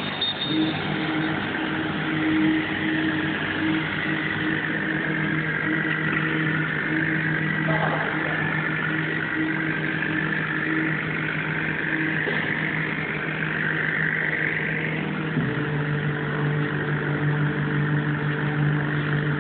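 Laser cutting machine running: a steady mechanical hum under a higher whine that wavers and rises in pitch, then falls away about fifteen seconds in as the hum changes pitch.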